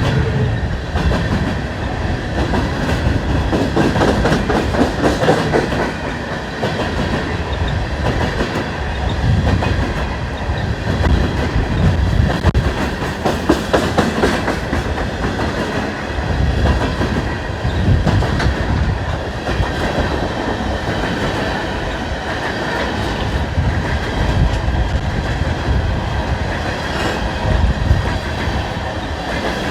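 Freight coal train rolling past close by: a steady rumble with continual clickety-clack of wheels over the rails.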